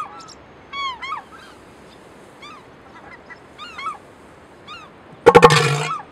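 Gulls calling in short repeated cries, then near the end a bull northern elephant seal's loud threat call: a rapid train of deep, throbbing pulses, strong enough to be felt in the lungs.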